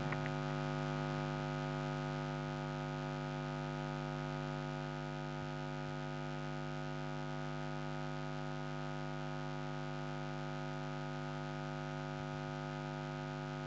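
Steady electrical mains hum: a low tone with many evenly spaced overtones above it, unchanging in pitch and level.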